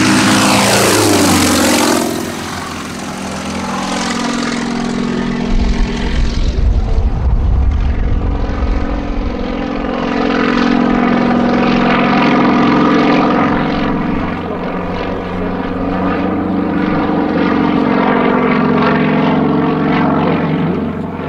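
A Yakovlev Yak-55's nine-cylinder radial engine and propeller, dropping sharply in pitch over the first two seconds as the plane passes low by and pulls away. After that it is a steady drone that swells and fades as the plane flies aerobatic figures.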